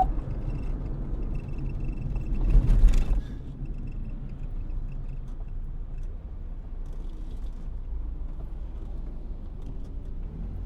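Low vehicle rumble, with a faint high tone on and off in the first three seconds and a brief loud burst of noise about three seconds in.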